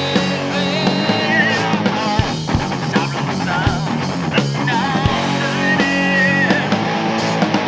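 Rock band playing an instrumental passage: an electric guitar lead with bent, wavering notes over bass and drums.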